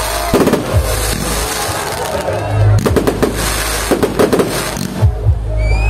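Fireworks going off in repeated clusters of sharp bangs and crackles, with music playing underneath.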